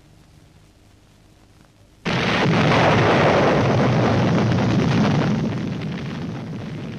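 Electrically detonated explosive charges blasting at a mine face. A sudden loud blast comes about two seconds in and slowly fades away over the following seconds.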